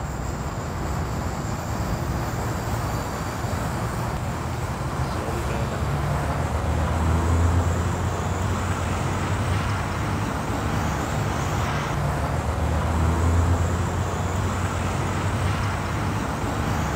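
Wind buffeting the microphone outdoors: a steady low rumble that swells about seven seconds in and again around thirteen seconds in.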